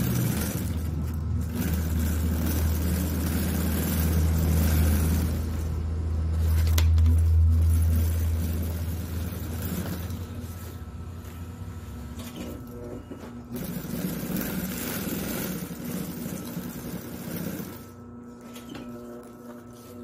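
Industrial sewing machine running while stitching a thick webbing strap: a steady low motor hum with mechanical noise over it, loudest in the first half and easing off after about twelve seconds.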